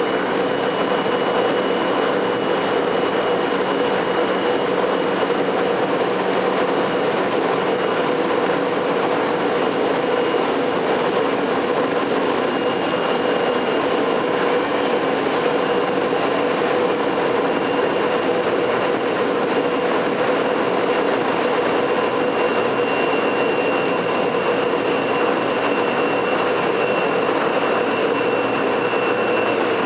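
Tokyo Metro 03 series commuter car running on the line, heard from inside the cabin: a steady rumble of wheels on rail with a faint steady whine over it.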